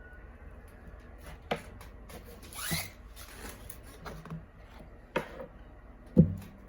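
Hands handling packing and containers: a few separate sharp knocks and a short rubbing scrape, with the loudest, deepest thump near the end as something is set down.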